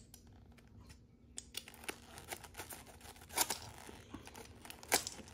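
Packaging being torn open by hand: crinkling and tearing of wrapping and tape in scattered short crackles, the loudest about three and a half and five seconds in.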